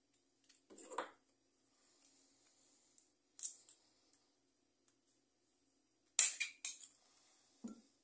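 Light metallic clicks and clinks from handling the fan motor's bearing housing and its sheet-metal retaining clip while working to re-crimp it, in a few separate bursts about one, three and a half, six and seven and a half seconds in.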